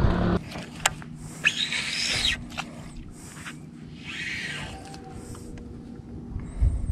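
A cast with a baitcasting reel: the spool whirs as line pays out, rising and then falling in pitch, with a few short hisses and clicks from the reel and rod.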